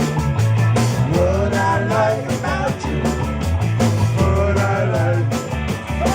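Live rock band playing loud, with a steady bass and drum beat and a bending lead line over it.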